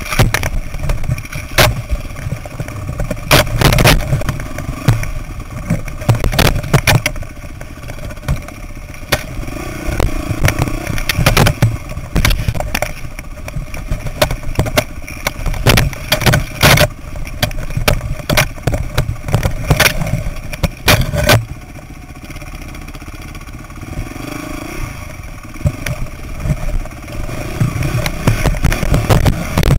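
Dirt bike engine running on a rough trail, with many sharp knocks and rattles as the bike jolts over rocks. About two-thirds of the way in, the engine and the knocking drop back for a few seconds.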